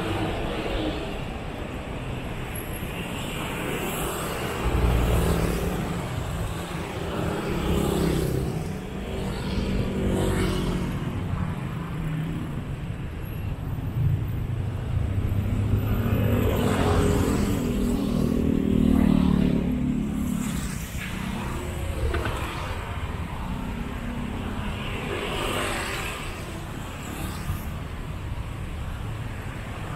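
City street traffic: a steady rumble of road vehicles with several passing one after another, the loudest passing about two-thirds of the way through.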